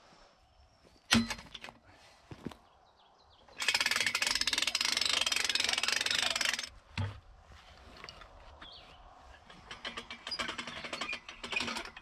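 Metal ratcheting lift jack being set and pumped to raise a heavy log. A knock about a second in, a steady rapid clatter for about three seconds, a thud, then irregular ratchet clicks near the end.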